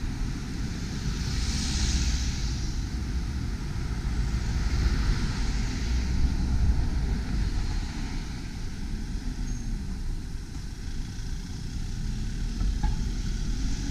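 Street traffic passing: cars going by one after another with swells of tyre hiss, about two seconds and five seconds in, then a small box truck approaching near the end, over a steady low rumble.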